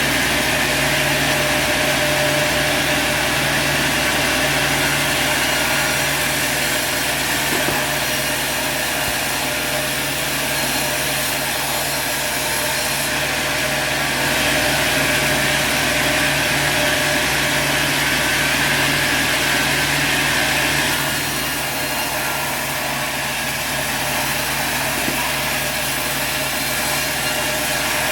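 Sawmill running: a steady engine hum under the high hiss of the saw blade, which eases slightly about three-quarters of the way through.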